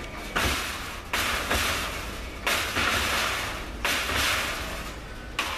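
A series of about seven loud bangs and crashes, each starting sharply and dying away within a second, the last one short and sharp near the end. It is clattering noise made on purpose as a distraction test for a dog holding a down-stay.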